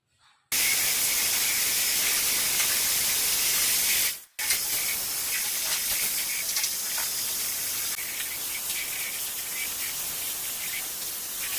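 A steady hissing rush that starts abruptly about half a second in, breaks off briefly around four seconds, then resumes a little quieter.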